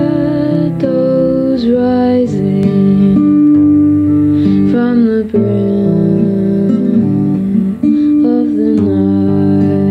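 Song with plucked and strummed acoustic guitar under a slow, held sung melody.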